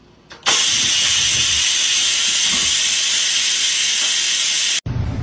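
Electric pressure rice cooker venting steam: a loud, steady hiss that starts suddenly about half a second in and cuts off abruptly near the end.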